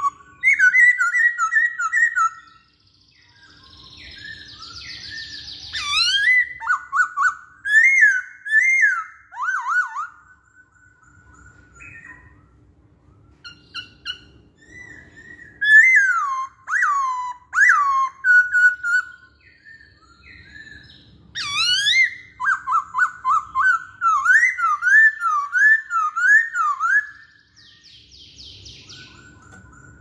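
Black-throated laughingthrush (poksay hongkong) singing loud, whistled song in bouts. Fast runs of repeated notes sweep up and down, with pauses of a few seconds between bouts.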